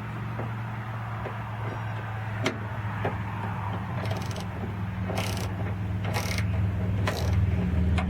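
A hand tool working a 10 mm bolt inside a car door: a few metal clicks, then four short bursts of ratcheting about a second apart. Under it runs a steady engine hum that grows louder near the end.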